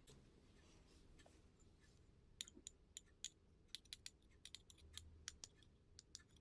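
Faint, light clicks and ticks of the mixer grinder's new bush and oiled felt washer being handled and set into the motor's bearing seat, a dozen or so scattered through the second half, over near silence.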